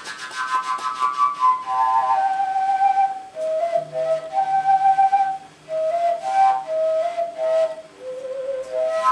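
Homemade fujara (a long Slovak overtone flute) built from plastic water pipe, played by mouth: a breathy attack and a quick falling run of notes, then a slow melody of held, whistle-like notes broken by short pauses for breath.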